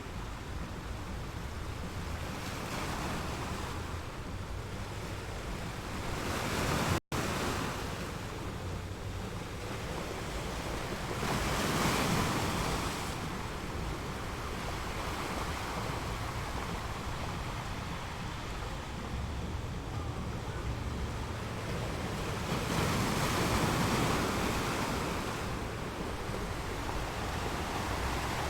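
Sea waves washing on the shore, swelling louder about seven, twelve and twenty-four seconds in and easing between, with a steady low rumble of wind on the microphone. The sound cuts out for an instant just after the first swell.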